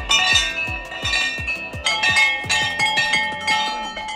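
Row of hanging metal temple bells rung by hand one after another, each strike clanging and ringing on. The strikes come about two or three a second, quickening about halfway through.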